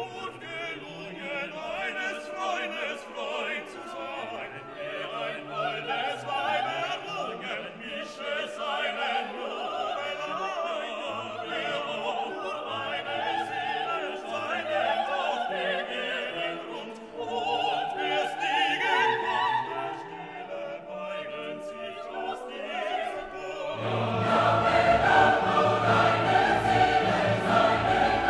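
Classical orchestral music with choir singing, laid over the picture as a soundtrack; about four-fifths of the way through it swells louder and fuller, with a heavier bass.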